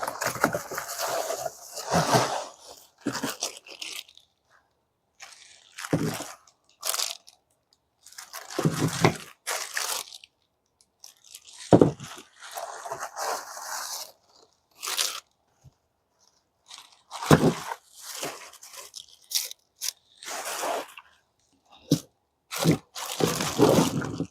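Packaging being opened and handled: irregular crinkling and scraping bursts of plastic wrap and cardboard, broken by pauses, with a few sharp knocks as the plastic dumpling press pieces are handled and set down.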